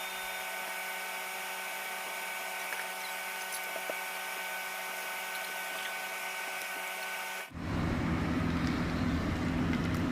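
A toy bullet train's small electric motor running with a steady whine. Near the end it cuts off abruptly, and a louder low rumbling takes over.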